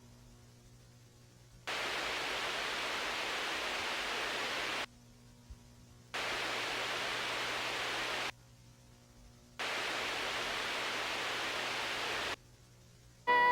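Three bursts of hiss like TV static, each two to three seconds long, broken by short gaps where only a faint low hum remains.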